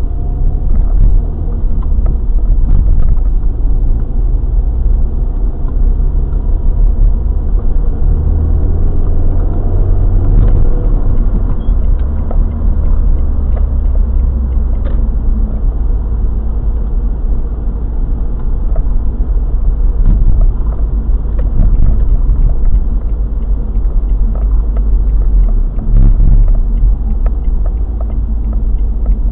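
A car driving, heard from inside the cabin: a steady low rumble of road and engine noise, the engine note shifting as the car speeds up and slows, with a few faint clicks.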